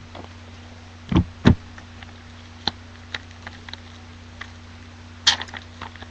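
Trading card packs and cards being handled and opened: two dull knocks a little over a second in, scattered light clicks, and a brief crinkly rustle of a pack wrapper near the end, over a steady low electrical hum.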